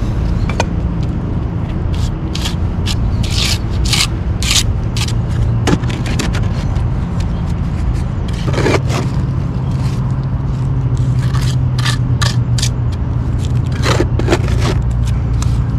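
Steel trowel and gloved hand scraping and smoothing wet rapid-set concrete patch mix along a damaged concrete curb edge, in many short separate strokes. A steady low hum runs underneath.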